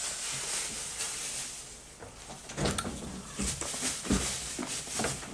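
Close-miked eating sounds of raw sea anemone in chili soy sauce: a soft hiss, then from about halfway a run of irregular wet smacks and clicks as the slippery pieces are handled and chewed.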